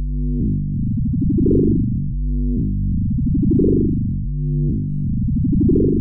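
Vector FM, an FM synthesizer in Ableton Live, playing a low sustained tone whose overtones swell brighter and fade back about every two seconds as its particle-operators move.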